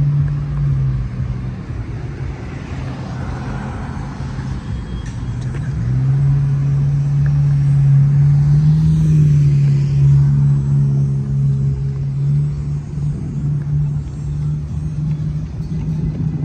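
Street traffic at a city intersection: cars driving past, under a steady low hum that grows louder about six seconds in.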